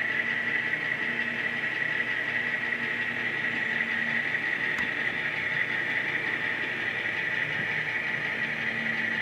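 HO scale model diesel locomotive running slowly on its track, a steady hissing whine with a faint lower hum, and a single sharp click about five seconds in.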